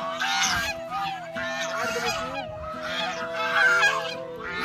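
A flock of white domestic geese honking loudly, call after call overlapping.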